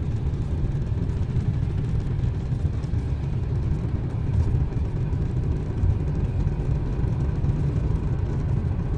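A car driving: a steady low rumble of road and engine noise with a fainter hiss above it, cutting in suddenly at the start.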